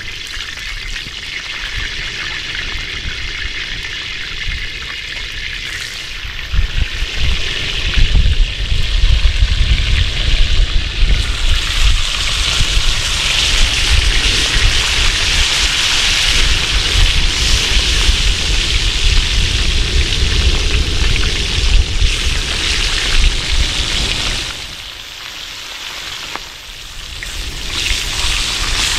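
Small mullet frying in hot oil in a plow-disc pan over a wood fire: a loud, steady sizzle that swells about seven seconds in, with a low rumble underneath. The sizzle drops back briefly near the end, then picks up again.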